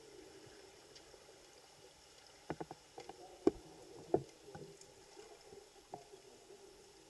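Underwater swimming-pool ambience heard through a submerged camera: a steady low hum, with a cluster of sharp clicks and knocks about two and a half to four and a half seconds in.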